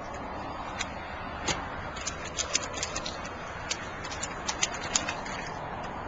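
A toddler's hands slapping and splashing water in an inflatable paddling pool: irregular sharp splashes, some in quick runs, over a steady background hiss.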